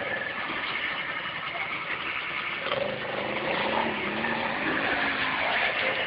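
ATV engine revving under load as the quad climbs a steep sand hill and pulls away.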